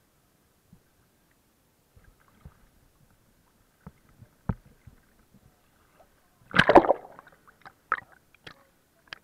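Sea water sloshing and splashing at the surface around a camera dipping in and out of the water: scattered small splashes and knocks, with one loud splash about six and a half seconds in.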